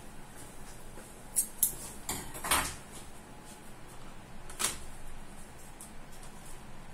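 Parts being handled inside an opened all-in-one computer's chassis: two quick clicks about a second and a half in, a short scrape a moment later, and another click past the middle.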